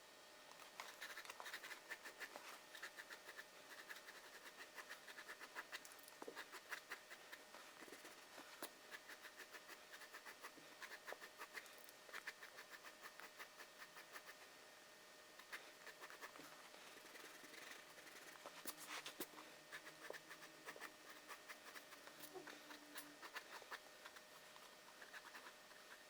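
Faint scratching of a drawing tool on paper, in quick irregular strokes with brief pauses, as lines are sketched.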